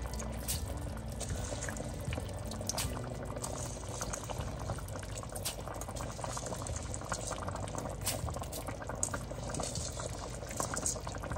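Chicken biryani gravy boiling in an enamelled cast-iron Dutch oven, with bubbles bursting in many small, irregular pops over a steady bubbling.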